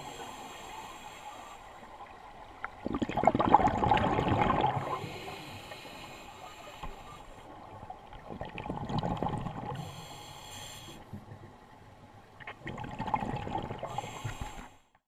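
Scuba diver breathing underwater through a regulator: short hissing inhalations alternate with bubbling exhalations, three breaths about four to five seconds apart, cutting off suddenly near the end.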